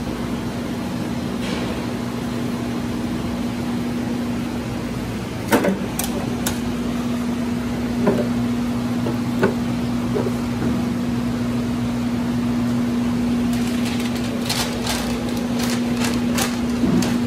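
A live lobster being handled in a clear plastic tub on a steel counter: scattered sharp clicks and knocks of plastic and shell, with a quick run of clicks near the end, over a steady hum and hiss.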